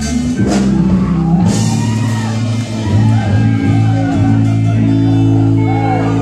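Live church praise-break music: a band with guitar plays loud sustained chords, with congregation voices shouting and singing over it.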